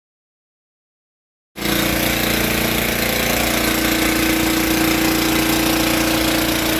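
Silence for about the first second and a half, then a small portable engine-driven emergency fire pump starts sounding and runs loud and steady, with a constant hum, while it pumps water out through its hose.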